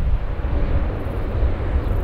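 Airbus A400M's four turboprop engines and propellers running loud on the runway, a deep, steady rumble of engine and propeller noise.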